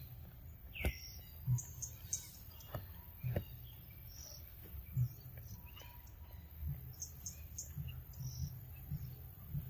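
Forest birds chirping now and then, with a falling call about a second in, over soft irregular low thumps and a few sharp clicks close by.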